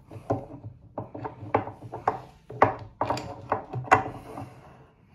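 Metal tailstock of a 1D601 benchtop lathe being set and slid onto the lathe bed: a run of irregular clicks and knocks, about ten, dying away after about four and a half seconds.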